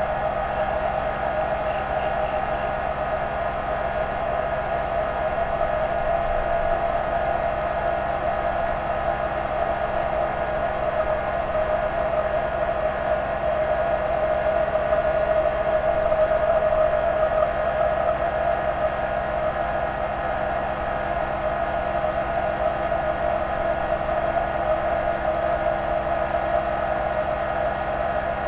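Lathe converted to CNC running as it turns a white plastic workpiece: a steady mechanical whine over a low hum, getting slightly louder around the middle.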